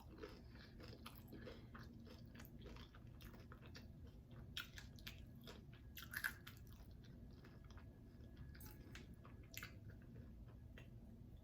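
Faint close-up mouth sounds of someone chewing a bite of vegan chorizo taco: many small, soft clicks of the mouth and food, slightly louder about six seconds in.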